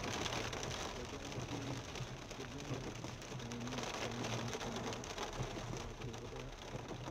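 Heavy rain falling on a car's roof and windscreen, mixed with tyres on the wet road, heard from inside the slowly moving car as a steady hiss.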